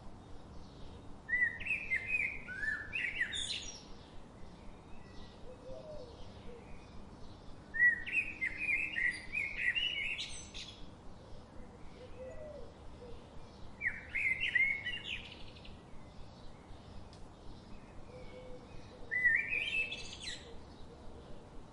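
A songbird sings a short, rapid phrase of chirps and trills four times, about every six seconds. Under it runs a faint, steady patter of quick chirps from other birds.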